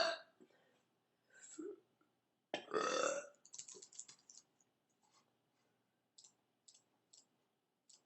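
A young woman burping: the end of one burp at the very start, a small one about a second and a half in, and a long, loud one about two and a half seconds in. After it come a quick run of computer keyboard clicks, then a few single clicks spaced about half a second apart.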